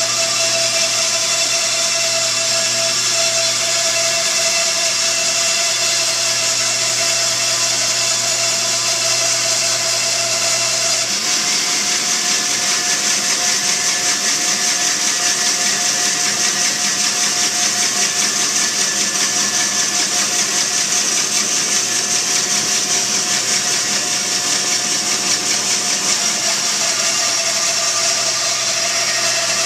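Bandsaw running and ripping a Newfoundland juniper (larch) log, a steady motor drone with the hiss of the blade in the wood. About 11 seconds in the low hum drops away and the hiss grows louder.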